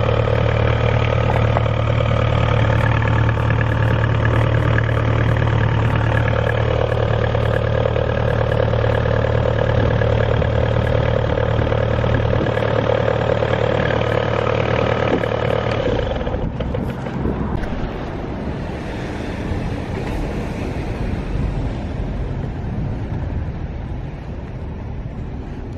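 Perkins 404D-22T turbocharged four-cylinder diesel in a Geminiani silent power pack, running steadily with a strong hum. About sixteen seconds in the engine sound stops abruptly, leaving a softer rushing like wind on the microphone.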